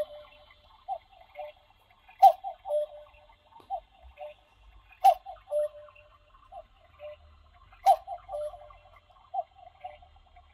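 Clock ticking: a louder, sharper click about every three seconds, with quicker, softer ticks between.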